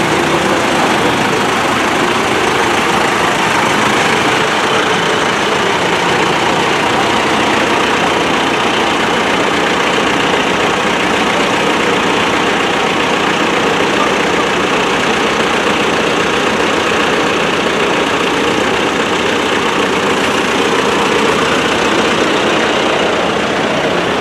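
Diesel engines of a line of New Holland and John Deere farm tractors idling close by, a steady running sound that holds level throughout.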